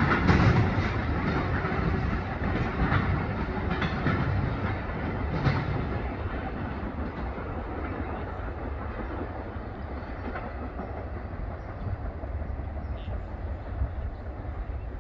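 Norfolk Southern freight train's cars rolling away over the rails, with wheels clicking over the rail joints in the first half. The rumble fades as the end of the train moves off.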